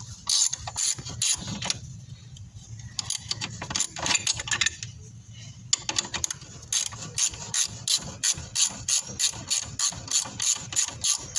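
Hand socket ratchet wrench clicking as a bolt is undone. The clicks come sparse and irregular at first, then settle into an even run of about three clicks a second in the second half.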